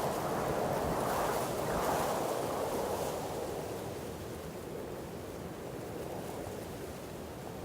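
Wind blowing through trees, a steady rushing of leaves and branches that swells in a gust over the first three seconds, then eases.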